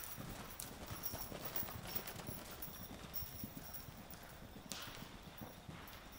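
Hoofbeats of horses cantering loose on soft sand arena footing: faint, irregular muffled thuds.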